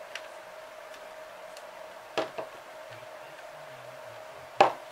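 Light knocks and clicks of hand work on a small metal model glow engine and a screwdriver on a cutting mat. There is a knock about two seconds in, a softer one just after it, and a sharper, louder knock near the end, over a steady faint hum.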